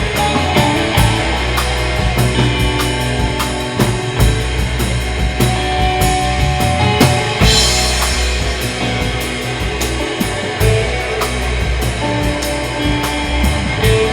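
Rock band playing live, an instrumental passage of guitar over drum kit and bass, with a cymbal crash about halfway through.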